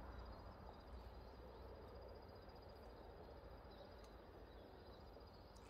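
Near silence: faint outdoor background with a faint, steady, high-pitched pulsing tone.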